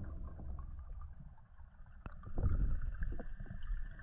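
Muffled underwater noise picked up by a camera in its housing while a diver swims: a low rumble of moving water with scattered small clicks and knocks, growing louder about two seconds in.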